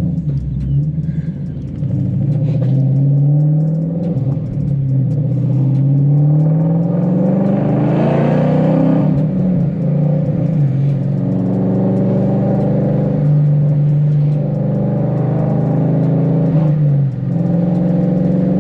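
Ford Mustang 5.0 V8 exhaust heard inside the cabin while driving. The revs climb and fall back several times as it accelerates and shifts up, then settle to a steadier note with a couple of brief dips.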